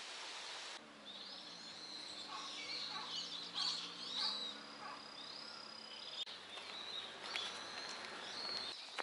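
Wild birds chirping and calling, with short high chirps and one longer whistled note, over a faint low hum.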